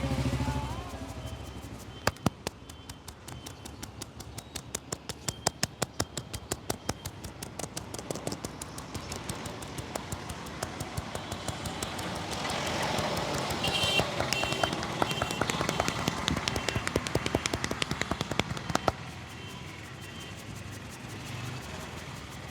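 Sharp hand slaps and taps on a head during a barber's head massage, in quick rhythmic runs that speed up and slow down, several strikes a second.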